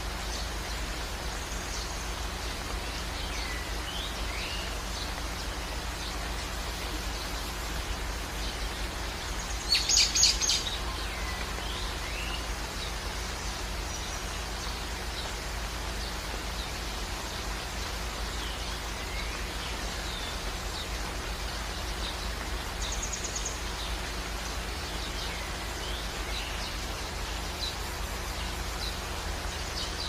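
Steady rain with birds chirping now and then. About a third of the way in comes a brief loud burst of several rapid notes, the loudest sound.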